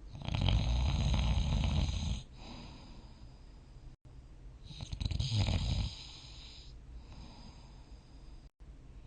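A sleeping person snoring, two loud snores about four and a half seconds apart. The first lasts about two seconds; the second, about halfway through, is shorter. Quieter breathing runs between them.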